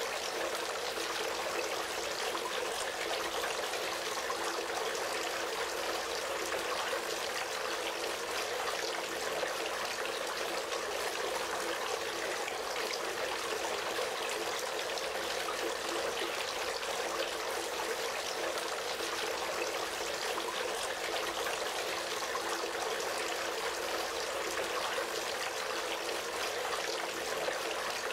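Water trickling and splashing steadily from a three-tier polystone garden fountain, spilling from bowl to bowl in an even, unchanging stream.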